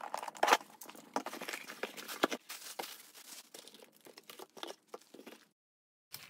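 Shipping package being opened by hand: irregular crinkling, rustling and tearing of packaging. It stops abruptly shortly before the end.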